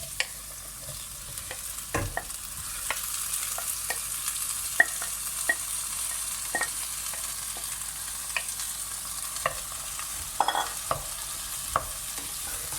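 Diced spiced potatoes sizzling in hot oil in a pan with onions, the sizzle growing louder about two seconds in, while a spoon stirs them, knocking and scraping against the pan.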